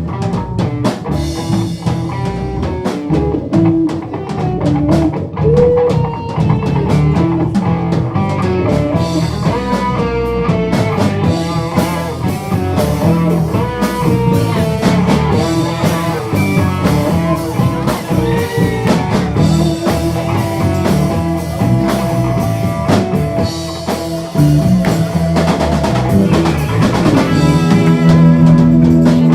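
Live rock band playing an instrumental stretch of the song with guitar and drum kit and no singing; near the end it settles onto long held notes.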